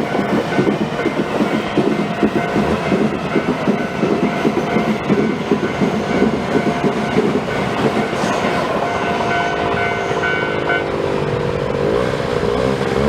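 Tobu Tojo Line electric train passing over a level crossing, its wheels clattering rapidly over the rails for the first eight seconds or so, while the crossing's electronic alarm rings a steady tone. The alarm stops about eleven seconds in. An engine then speeds up, its pitch rising, dipping briefly near the end and rising again.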